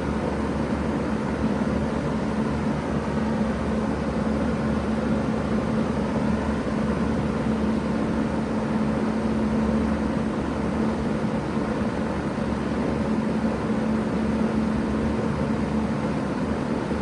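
Bard 3-ton wall-hung heat pump running in cooling mode: a steady hum under an even rush of fan air, with no change in pitch or level.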